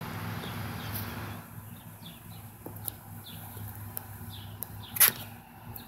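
Bees buzzing at a flowering catnip plant, a low steady hum, with small birds chirping in the background. A sharp click about five seconds in is the loudest sound.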